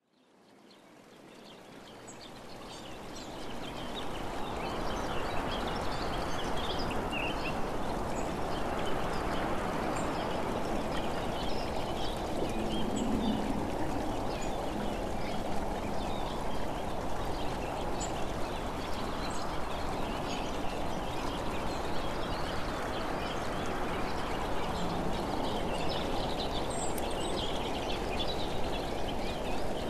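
Steady rushing outdoor ambience with birds chirping here and there, fading in over the first few seconds.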